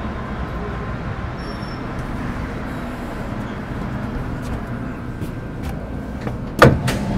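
Steady low rumble inside an MTR Metro Cammell M-Train (GEC GTO chopper electric multiple unit). About six and a half seconds in there is one loud, sharp knock, followed by a couple of fainter clicks.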